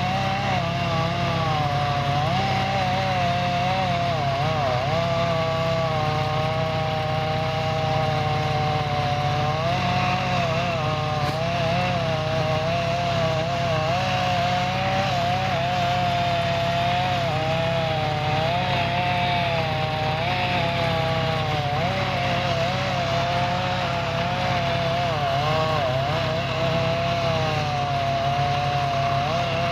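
Chainsaw cutting the felling notch into a large ash trunk, running steadily under load, its pitch dipping and recovering again and again as it bites. A steady low engine hum runs underneath.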